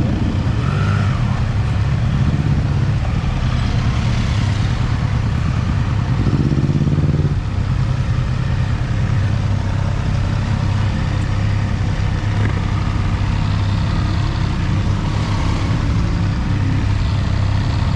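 Triumph Trident 660's three-cylinder engine running steadily at low revs as the bike rolls slowly over paving, with a brief rise in revs about six to seven seconds in.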